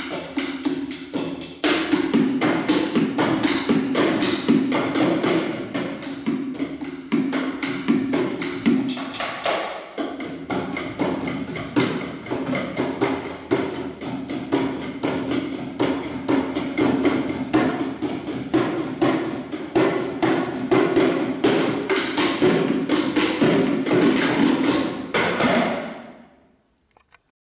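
Bucket drumming: several players beat upturned plastic buckets with drumsticks in a fast, dense rhythm of hollow knocks. It fades out near the end.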